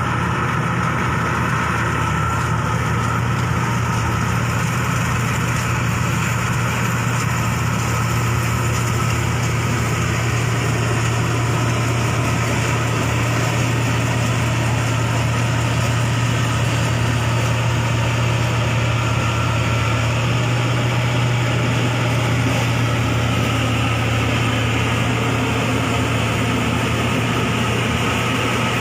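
Inari combine harvester's engine running steadily at an even speed, a constant low hum with machinery noise over it.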